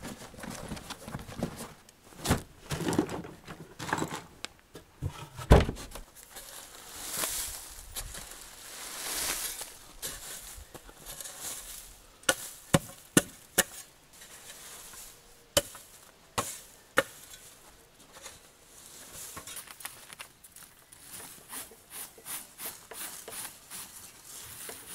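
Irregular knocks, taps and clatter of wood being worked by hand, with a few sharper knocks, the loudest about five and a half seconds in. A scraping hiss runs from about seven to ten seconds in.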